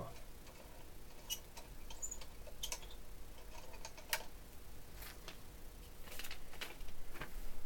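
Irregular light plastic clicks and taps as the propellers are unscrewed by hand from a DJI Phantom 1 quadcopter, the sharpest click about four seconds in.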